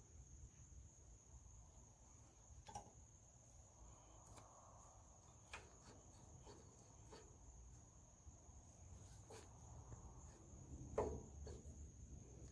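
Near silence: a faint, steady high-pitched insect trill, with a few light clicks and one louder knock near the end as hands handle the engine's governor parts.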